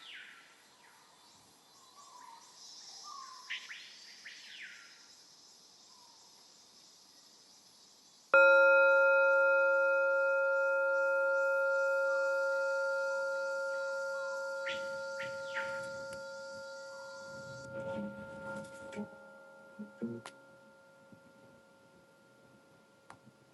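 A metal singing bowl is struck once about a third of the way in and rings with several overlapping pitches, fading slowly over about fifteen seconds. Before the strike there are only a few faint high chirps.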